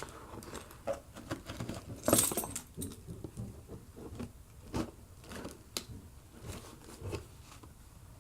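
A set of keys jangling and scraping along the packing tape of a cardboard shipping box, used as a makeshift blade to cut it open, with a louder scratchy rasp about two seconds in and small clicks and rattles after.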